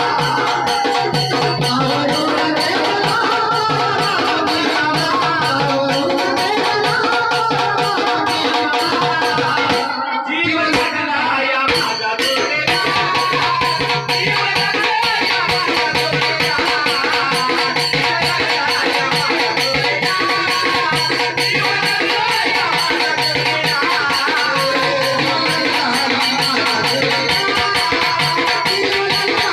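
Marathi folk song music with a steady drum beat and rattling percussion, briefly dropping out about ten seconds in.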